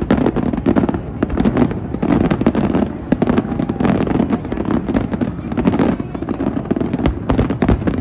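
Aerial fireworks display shells bursting in rapid succession: a dense run of bangs and crackling, several a second, over a continuous low rumble.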